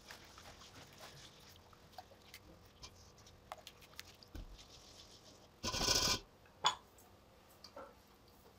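Spatula stirring a thick yogurt marinade in a steel bowl: faint soft scrapes and light ticks, with one louder brief clatter a little over halfway through and a sharp click just after it.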